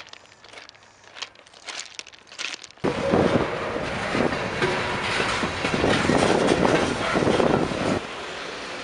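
Freight train's hopper cars rolling past, steel wheels running over the rails. It comes in suddenly about three seconds in after a stretch of faint crackling, and drops to a quieter steady rolling near the end.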